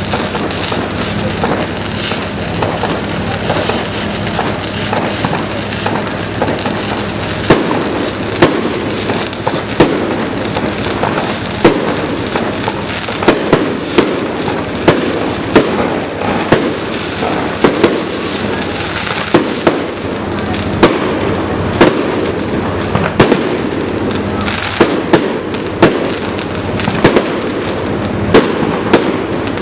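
Fireworks display: a continuous crackle with sharp bangs going off in quick succession, coming more often after the first several seconds.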